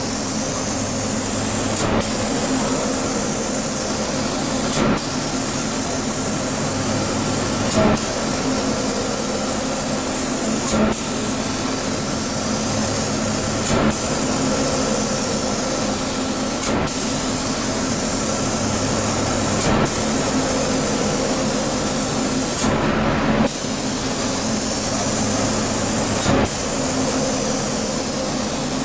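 Automatic CNC spray-painting machine's air spray gun hissing steadily as it sprays paint onto a wooden door. The hiss drops out briefly about every three seconds, once for a little longer near the end, over a steady low machine hum.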